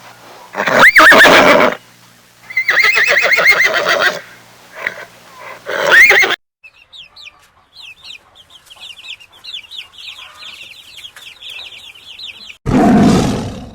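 A horse neighing: a loud call about a second in, a long quavering whinny, then another short loud neigh. Next come several seconds of faint, rapid high chirping. Near the end a big cat's loud roar begins.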